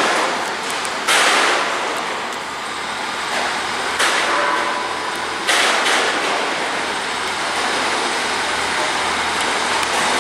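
Train at a station platform: a steady hiss with sudden loud surges of hiss about a second in and again around four and five and a half seconds in, each fading away, over a low engine hum.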